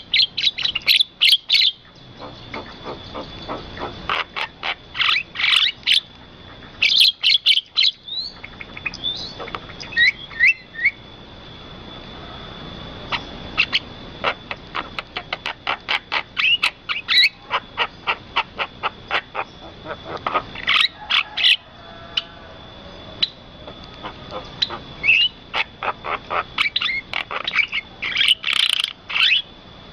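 Birds chirping and calling in quick clusters of sharp, high notes and fast rattling trills, over a steady high-pitched tone.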